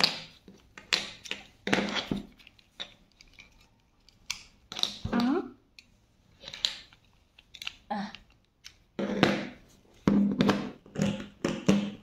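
Plastic puzzle-cube pieces clicking and knocking as they are handled and pressed together during reassembly, in short irregular taps.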